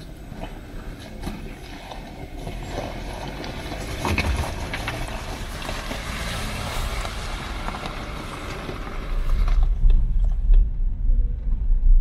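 Renault Duster SUV driving slowly over a rocky stream-bed track, its tyres crunching and clicking on loose stones. About ten seconds in, the sound cuts to a heavy low rumble heard from inside the car's cabin as it drives on along a dirt road.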